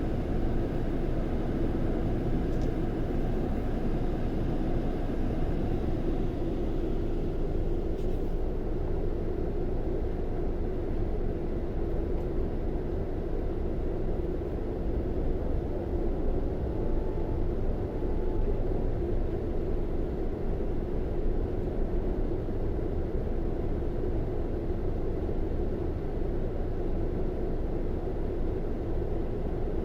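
Scania K400 bus's inline-six diesel engine running steadily: an even, continuous low drone with no changes in pitch.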